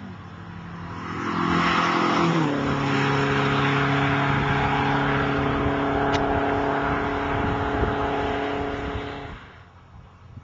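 Modified Ford Sierra Sapphire's Pinto engine on twin Weber DCOE carburettors, heard as the car drives past at speed. The engine note is loud and steady, drops in pitch once about two seconds in, and cuts off sharply near the end.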